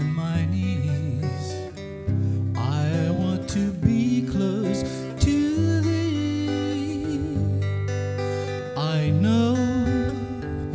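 Instrumental music: a strummed acoustic guitar with a melody line sliding between notes over held low notes.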